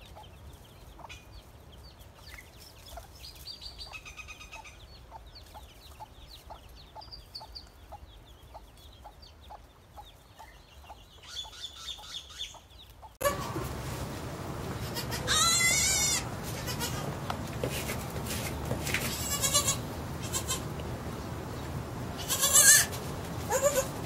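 Chicks peeping softly and repeatedly beside a white silkie hen. About halfway through the sound changes abruptly to a young goat kid bleating several times, louder, with the strongest bleat near the end.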